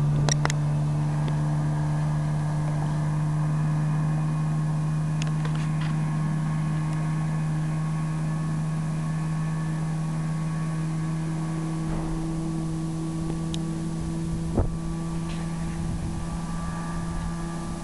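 Small outboard motor on a small fibreglass boat running at steady throttle, a steady drone that slowly fades as the boat moves away.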